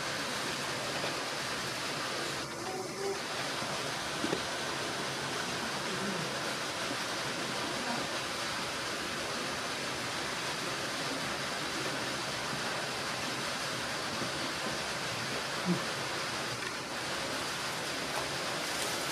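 Steady rushing background noise, with faint murmured voices here and there.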